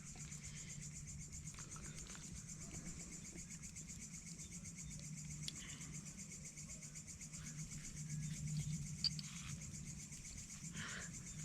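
Night insects chirping in a fast, steady high trill, with a low steady hum underneath.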